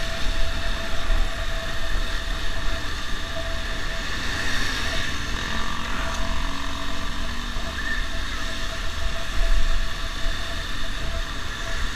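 Motorcycle riding along a road, its engine running steadily under a constant low rumble of wind on the helmet-mounted microphone.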